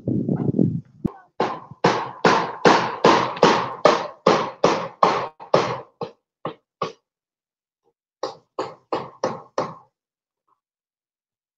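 Hammer blows, as when driving nails: a fast, even run of about fifteen strikes at roughly three a second that grow weaker toward the end, then after a short pause a second run of five.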